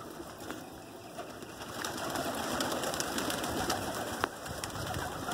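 A flock of pigeons cooing, with wing flaps and scattered sharp clicks as the birds move about and take off.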